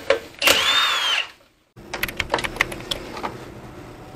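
Milwaukee cordless impact wrench spinning briefly, its motor pitch rising then falling, as a fastener is run off a mag wheel rim. About two seconds in come scattered light clicks and knocks.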